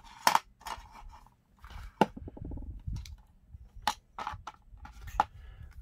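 Plastic drone battery case parts and the taped lipo cell pack being handled and set down on a cutting mat: a series of sharp clicks and knocks, the loudest about a third of a second in and again at about two seconds.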